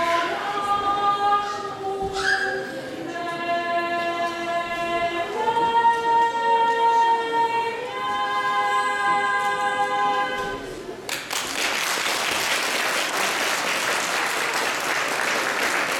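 Two women singing the closing long-held notes of a Romanian Christmas carol (colindă), their voices stopping about eleven seconds in. Audience applause follows at once.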